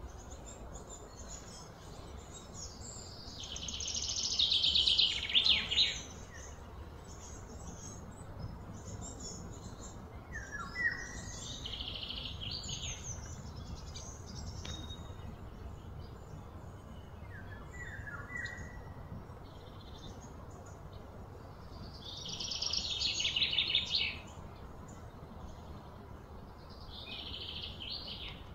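Wild animal calls: two loud spells of rapid, high-pitched buzzing trill lasting a few seconds each, about four seconds in and again some twenty seconds later. Quieter trills and a few short falling chirps come between them.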